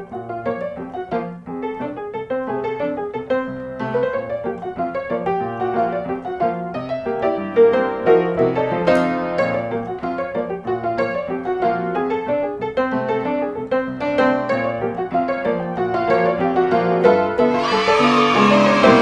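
Light background piano music with a steady melody, with a brief, brighter, higher-pitched sound joining near the end.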